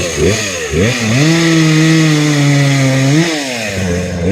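Gas chainsaw engine being warmed up: revved in a few quick blips, then held at a steady high speed, with one more short rev and drop about three seconds in.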